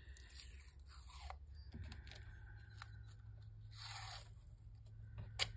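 Masking tape being pulled off the roll and torn off, faint, among light paper-handling rustles. There is a longer tearing sweep about four seconds in and a couple of sharp clicks near the end.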